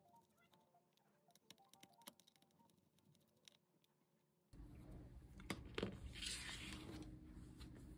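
Near silence with very faint background music and a few faint clicks. About four and a half seconds in, a low room hiss takes over, with a few small knocks.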